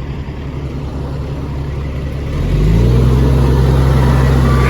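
Fire truck's diesel engine running, then speeding up about two and a half seconds in and holding at a higher, louder pitch.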